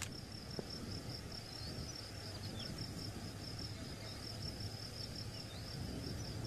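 Insects trilling steadily in a summer field: one continuous high-pitched trill over a faint low hum.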